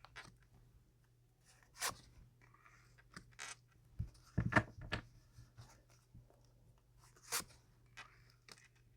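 Tarot cards being handled and laid out on a table: a handful of short, sharp snaps and slides with soft rustling between, the busiest cluster around the middle.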